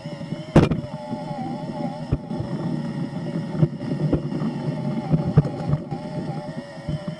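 Radio-controlled excavator running: a steady motor whine that wavers in pitch as the machine drives and swings, over a rough rumble. A sharp knock about half a second in is the loudest sound, and a few lighter clicks follow.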